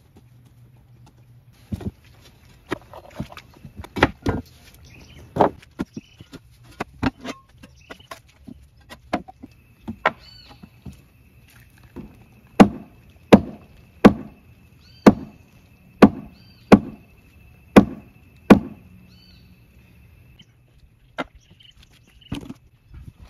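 A machete chopping into a wooden post: scattered blows at first, then a run of about eight hard strikes, roughly one a second, which stop near the end. A thin steady high tone runs through the middle.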